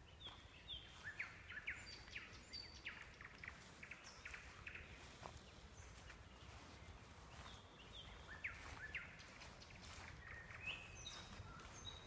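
Small songbirds chirping in two bouts of quick, high chirps, one at the start and one about seven seconds in, over a faint low rumble.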